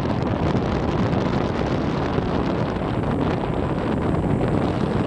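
Steady wind rush buffeting the microphone on a moving motorbike, with the bike's engine running underneath.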